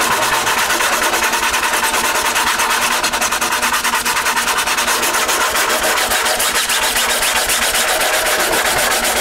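Sandpaper rubbed by hand over cured resin and fiberglass cloth on a balsa model-airplane fuselage: a continuous scratchy rasp in quick back-and-forth strokes. The scratch comes from the built-up layers of resin over the cloth weave, and it goes away as the surface is sanded smooth.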